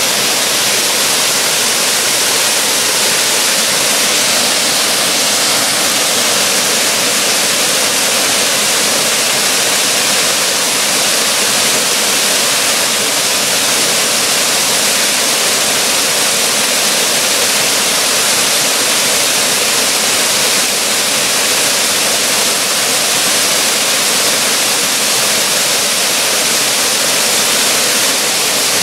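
Waterfall pouring into its plunge pool, a steady, unbroken rush of falling water.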